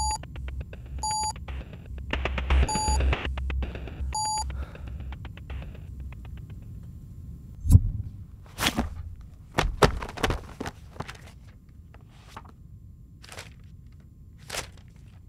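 Four short electronic beeps in the first few seconds, the error tone for a tablet search that comes up 'not found', over a pulsing synth music bed that fades out about six seconds in. Then a series of knocks and rustles as books are pulled from a shelf and leafed through.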